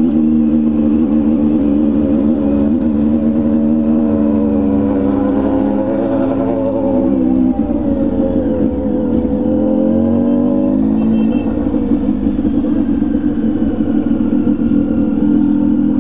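Motorcycle with an aftermarket exhaust pipe being accelerated along a smooth street. The engine note changes pitch and breaks about seven and a half seconds in, then again near eleven seconds, as the rider goes through the gears.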